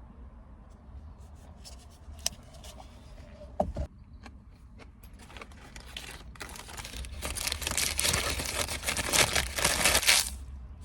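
Handling noise. A few sharp clicks and a knock, then a crinkling, tearing rustle that builds up, is loudest near the end and stops abruptly.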